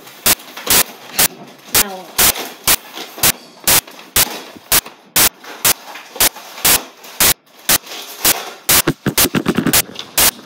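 A series of sharp, loud clicks, about two a second, coming closer together near the end.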